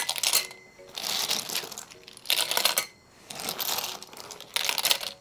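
Snail shells clinking and rattling against one another and the stainless steel pot as hands scoop and toss them, in about five short bursts.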